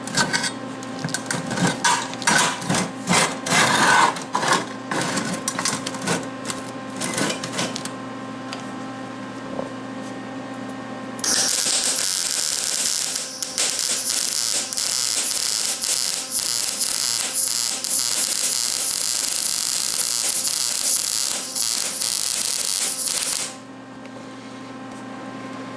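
MIG welder welding a steel box together: irregular crackling in short runs for the first several seconds, then one continuous bead with a steady hiss for about twelve seconds that stops abruptly.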